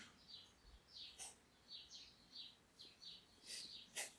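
Cockatiel chicks making faint, short, downward-sliding chirps about twice a second, with two brief clicks, one a little over a second in and one near the end.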